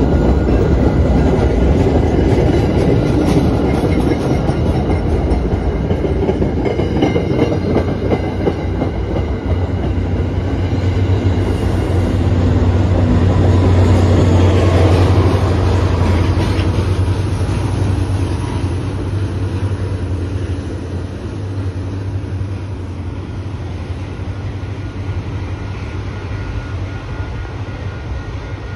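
MBTA commuter rail coaches running past close by, wheels clacking over the rail joints. A deep low rumble swells about halfway through, then the sound fades as the train draws away.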